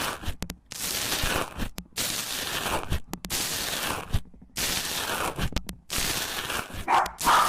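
Slime being squeezed and worked by hand, crackling and popping in a run of strokes about a second long, separated by short silent gaps. A louder, higher-pitched sound comes in near the end.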